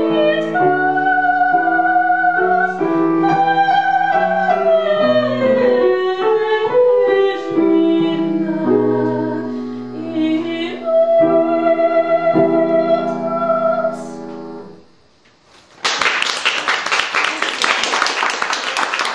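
A woman singing the closing phrases of an aria with piano accompaniment, ending on a long held note that dies away. After a brief silence, applause breaks out about sixteen seconds in.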